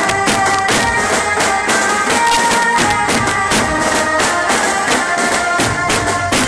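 Live garba band music, loud and continuous: dhol drums beat fast and steady under a line of held melody notes.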